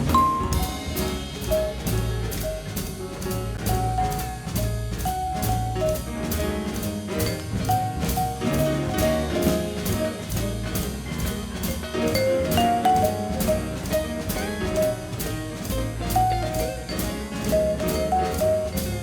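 Background music with a drum kit keeping a steady beat under a melody.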